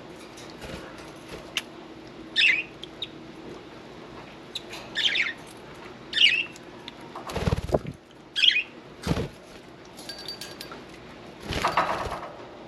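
A budgie gives four short chirps, with three brief noisy flurries of wing flapping between and after them, the last the longest.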